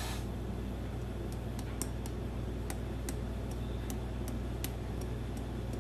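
Steady low hum with a dozen or so faint light ticks at uneven intervals: small handling clinks of a metal measuring spoon and spice container as ground ginger is levelled.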